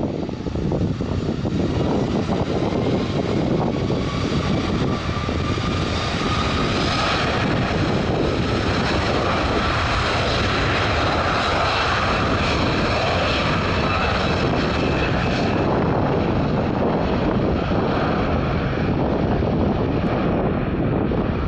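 Two Rolls-Royce Trent 700 turbofans on an Airbus A330-300 spooling up to takeoff thrust and running through the takeoff roll. The engines make a steady roar, with a whine that rises in pitch over the first several seconds and high tones held above it.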